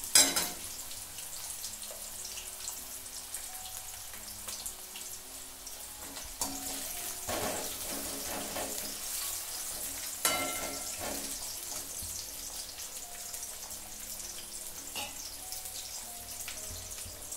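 Potato slices shallow-frying in oil in an aluminium kadhai, a steady sizzle, with a metal spoon scraping and clinking against the pan a few times near the start and around the middle.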